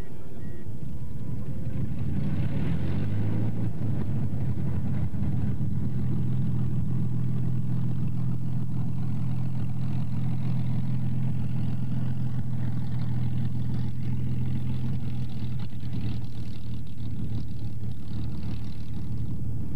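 Piston aero engine of a Hawker Hurricane fighter, a Rolls-Royce Merlin V12, running at high power as the plane rolls along the runway. Its pitch rises about two to three seconds in, then holds steady.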